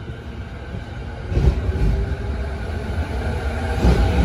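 JR electric commuter train moving along the platform close by, a low rumble of wheels and running gear that grows louder about a second and a half in.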